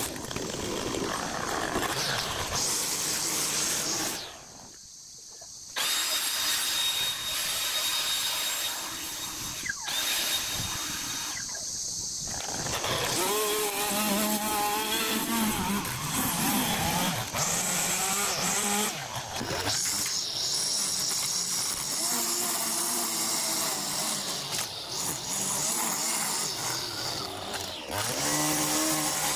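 Petrol string trimmer running and cutting grass along a concrete path edge, its engine pitch rising and falling as it is worked. The sound drops away briefly about four seconds in.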